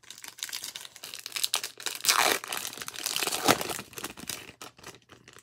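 Foil-lined trading-card pack wrapper crinkling and tearing as it is ripped open by hand, with the loudest crackles about two seconds in and again at about three and a half seconds, fading out near the end.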